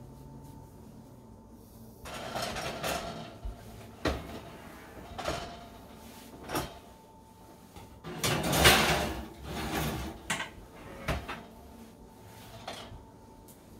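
An oven door being opened and shut while a pizza pan is slid in: scattered knocks and clanks, with a scraping rush about two seconds in and a louder one from about eight to ten seconds in.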